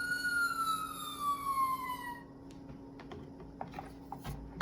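Recorded fire-engine siren, one wail that peaks and falls in pitch before cutting off about two seconds in, followed by a few faint clicks and a soft knock near the end.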